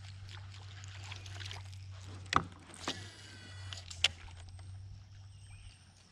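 Sit-on-top fishing kayak moving slowly through calm water, a steady low hum with faint water hiss that fades out near the end. Two sharp knocks, about two and a half and four seconds in, are the loudest sounds.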